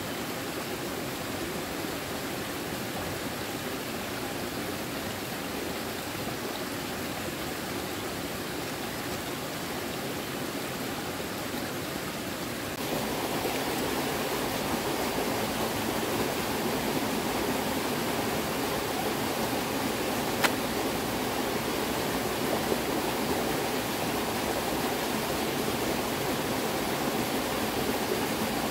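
Running water rushing steadily, as from a stream or floodwater. It jumps a little louder about 13 seconds in, and there is one sharp click about 20 seconds in.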